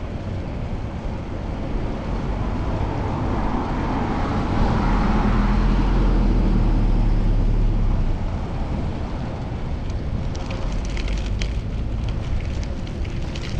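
Street traffic heard from a moving bicycle, with a vehicle passing that is loudest about five to seven seconds in. Crackling noise comes in near the end.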